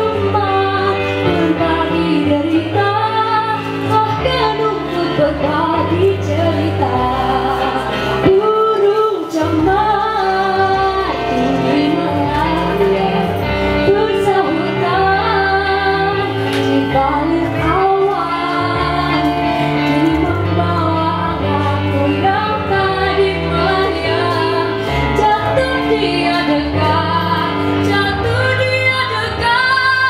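A teenage girl singing a pop ballad solo into a microphone over instrumental accompaniment, with held notes and slides.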